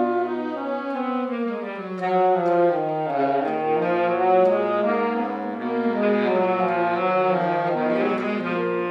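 A saxophone ensemble of six saxophones in several sizes playing together, holding notes in chords that move in harmony. The lowest part drops out about a second in and comes back about three seconds in.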